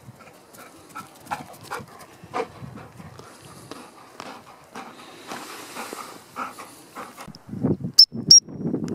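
A gundog moving and breathing close by in rough grass. Near the end come two short, high blasts on a gundog whistle, a third of a second apart.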